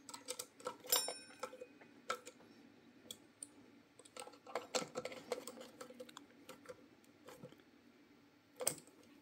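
Hex-bit screwdriver tightening the motor-mount screws through a plastic mounting bracket, giving faint scattered metallic clicks and ticks. About a second in, one click rings briefly.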